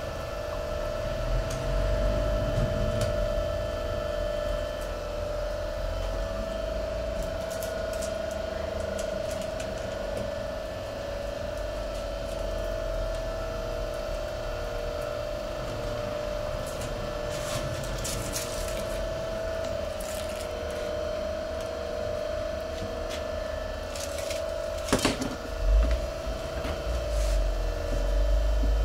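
A small rotary tool running steadily with an even whine, buffing the inner liner of a truck tyre around a nail puncture to prepare it for a patch. A few sharp clicks and knocks come in the last third.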